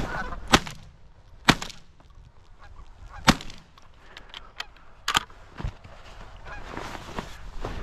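Several shotgun shots, sharp cracks a second or two apart in the first five seconds, with geese honking between and after them.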